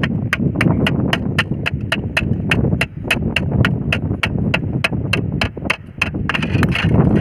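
A hammer tapping the back of a knife blade to cut through a thin tin-can sheet laid on rock: rapid, even metallic taps, about three or four a second.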